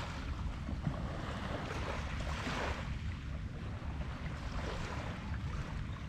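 Wind rumbling on the microphone over small waves washing onto a sandy beach, the wash swelling and fading every couple of seconds.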